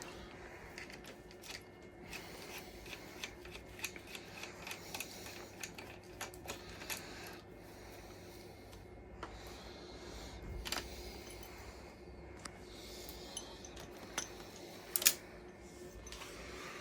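Light, scattered clicks and taps of hand tools and small metal parts being handled during motorcycle indicator removal, with one louder click near the end.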